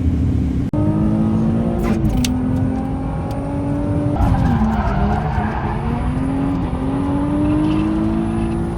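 Drift car engine running hard on track: its pitch drops sharply twice, about two and four seconds in, then climbs slowly again. Tyres skid a few seconds in.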